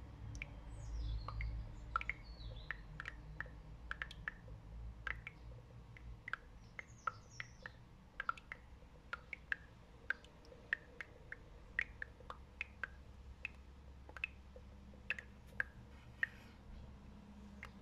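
Catfish crowded in a shallow basin of water, making irregular small wet clicks and pops at the surface, about one or two a second, with a couple of short high squeaks.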